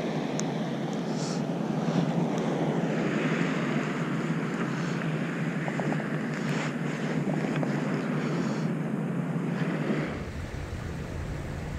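Wind blowing across the microphone over the wash of small surf waves, a steady noise. About ten seconds in it turns lower and duller.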